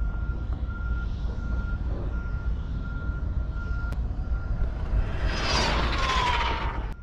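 Wind buffeting the microphone, then about five seconds in an Arrma Vendetta RC car speeds past on a high-speed run: a rising rush with an electric-motor whine that drops in pitch as it goes by, cutting off suddenly near the end.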